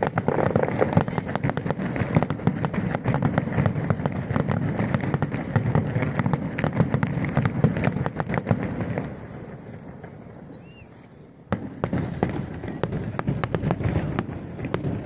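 Fireworks display going off in a rapid barrage: a dense string of bangs and crackles that eases into a quieter lull about nine seconds in, then starts up again suddenly a couple of seconds later.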